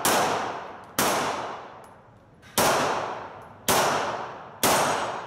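Pistol shots in an indoor range: five sharp shots spaced one to one and a half seconds apart, each ringing on and dying away slowly in the hall.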